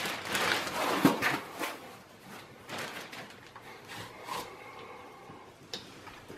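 Packing material being handled in a cardboard box: a foam sheet rustling and scraping as it is lifted out, with a few soft knocks, then quieter rustling of plastic wrap and cardboard.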